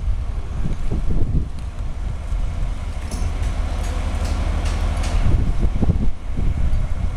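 Wind buffeting the microphone in gusts over a steady low rumble.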